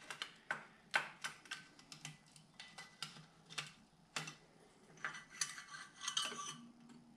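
Irregular light clicks and knocks of metal parts as a Honda CB550's cylinder block is worked up off the pistons and lifted from the engine, growing into a busier clatter about five seconds in.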